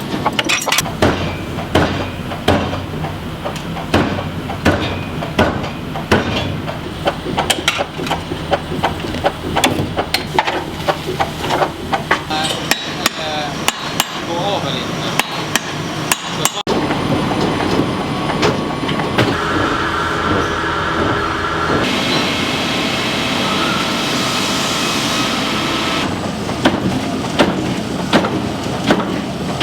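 Rapid, repeated forging hammer blows on axe steel, several strikes a second. About halfway through they stop suddenly and give way to a steady machine noise with a higher hiss for several seconds. The hammering starts again near the end.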